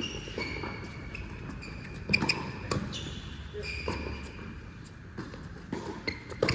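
Tennis balls knocking off rackets and bouncing on the court, a few irregular sharp hits, mixed with short high squeaks of players' shoes.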